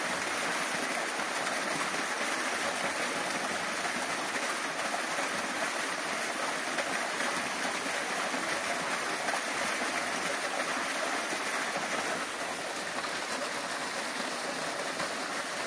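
Small waterfall splashing down rock into a shallow pool: a steady rush of falling water, a little softer near the end.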